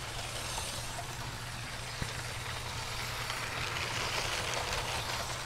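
Two battery-powered Lego trains running on plastic track: a steady whir from their motors and wheels rolling along the rails, with one light click about two seconds in. The older white train's motor is the noisier; the newer Powered Up motor runs quieter.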